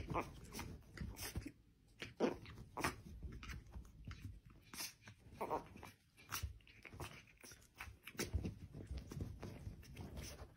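Faint play-fighting between a puppy and a cat on bedding: scattered soft scuffles and short mouthing clicks as the puppy play-bites.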